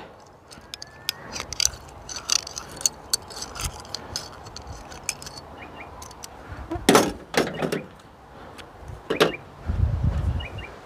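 Light metallic clicks and clinks of a hook being worked free from a caught bream, with a few sharper knocks and a low handling rumble in the second half.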